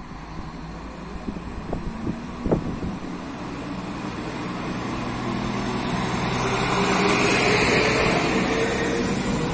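Stadler Regio-Shuttle RS1 diesel railcar (SA135) passing close by, its engine and wheel noise swelling to a peak as it goes past, with a rising whine. There are a few sharp knocks in the first seconds.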